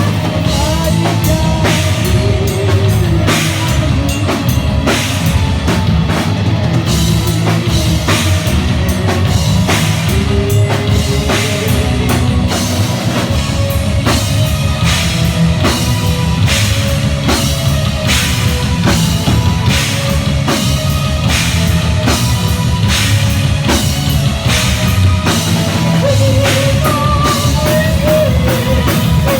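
Heavy metal band playing live: a drum kit keeps a steady driving beat of bass drum and cymbal hits under distorted guitars and bass.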